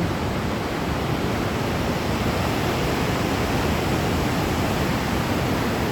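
Steady rushing noise of ocean surf, even and unbroken.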